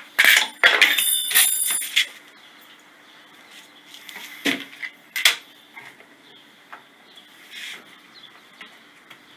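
Metal jigsaw blades rattling and clinking in their plastic case as it is opened and handled, with a dense clatter and some metallic ringing in the first two seconds. A few separate light taps and knocks follow, as the case is set down on the wooden table top.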